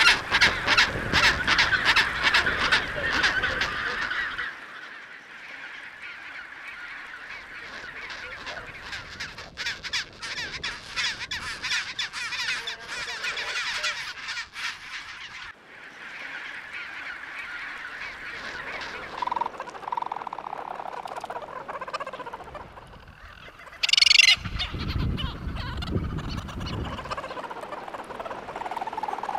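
Chinstrap penguins calling. For the first four seconds one loud call rings out as a rapid string of even pulses, about four a second, over a background of many birds calling. After that the calls are quieter and overlapping, with a sudden loud burst about 24 seconds in.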